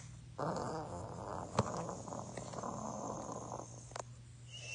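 A person making a pretend snoring sound: one long, rough snore lasting about three seconds, over a low steady hum.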